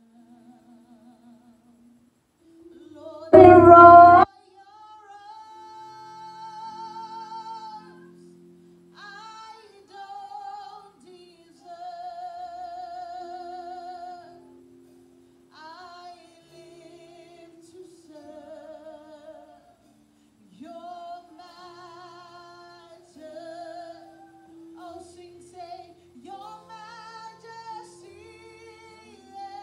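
A woman singing a slow worship song with a wide vibrato into a handheld microphone, in phrases with short breaks, over soft sustained keyboard chords. One sung phrase about three and a half seconds in is far louder than the rest.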